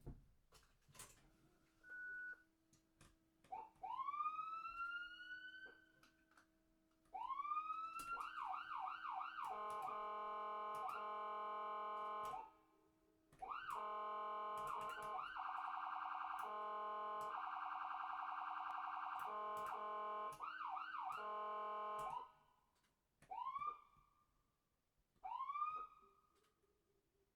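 Ambulance siren cycling through patterns: a few slow rising sweeps, then a quick run of yelps leading into long stretches of a steady, fast-wavering tone broken by short gaps. Near the end come three short rising whoops.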